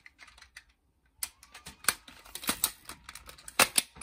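Plastic clicks and knocks of the DX Attache Shotgun toy as it is handled and folded from shotgun mode back into its briefcase mode. An irregular run of sharp clicks starts about a second in.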